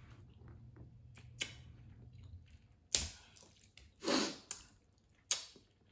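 Close-miked eating of a shell-on shrimp from a seafood boil: the shell is pulled apart by hand and the meat bitten. A handful of sharp snaps and cracks, the loudest about three seconds in, with a longer smacking sound just after four seconds.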